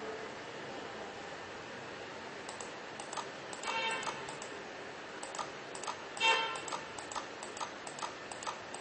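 Steady ticking, about three ticks a second, beginning about three seconds in. Two short beeps sound in the middle, the second one the loudest.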